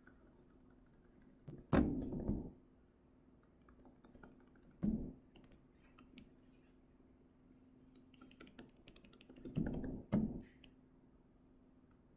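Faint scattered taps and clicks, with three louder knocks about two, five and ten seconds in, over a faint steady hum.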